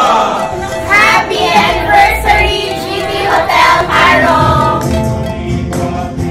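A song with singing voices over instrumental accompaniment; the lower accompaniment grows fuller about two-thirds of the way in.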